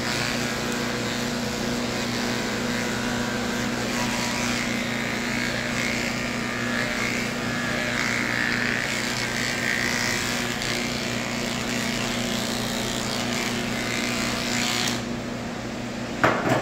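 Electric pet clippers buzzing steadily as they shave through a Persian cat's matted coat. Near the end the buzz cuts off, followed by a single sharp click.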